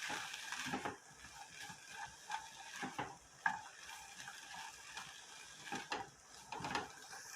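Meat frying in a pan with chopped green onion and bell pepper, sizzling softly, while a spoon stirs and scrapes against the pan in repeated short strokes.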